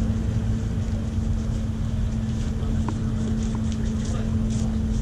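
Steady low drone of a car ferry's engines with a constant hum as the vessel moves slowly on the water, with wind rumbling on the microphone.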